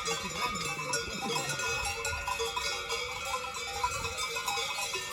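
Many livestock bells ringing at once, a steady jangle of overlapping tones, with a few short curving animal calls in the first second or so.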